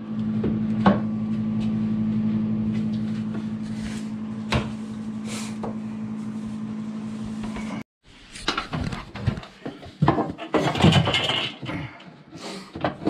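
A steady low machine hum with a few sharp clicks, then irregular knocks and clatter of laminate flooring planks being laid and pressed into place by hand.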